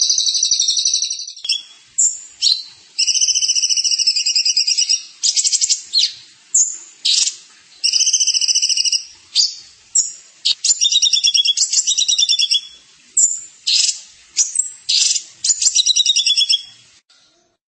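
A songbird singing fast, high trilled phrases: one long trill, then a string of short trills with brief gaps between them, stopping shortly before the end.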